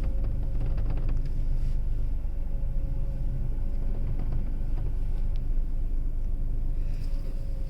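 Skoda Kushaq moving at parking speed: a steady low rumble with a faint steady whine, and a quick run of rattling clicks in the first second or so. This is the rattle the car makes while parking.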